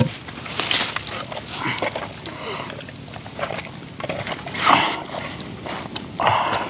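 Live eels being handled by hand in a bowl: a few short, wet, noisy rustles as they are gripped and pulled.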